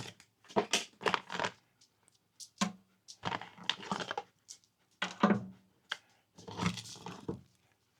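Packaging of a flashlight box being handled and rummaged through: rustling, crinkling and small clicks in several short bursts with pauses between them.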